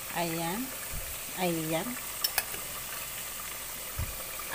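Sweet potato slices deep-frying in a pot of oil: a steady sizzle. A voice sounds twice briefly in the first two seconds, and two sharp clicks come near the middle.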